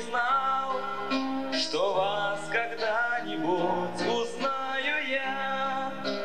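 A young male and female voice singing a song over instrumental accompaniment with long held chords, the melody gliding and bending between notes.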